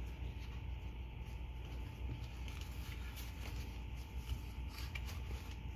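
Faint small clicks and rubbing of hands handling the parts of a small outboard's recoil starter, over a steady low hum.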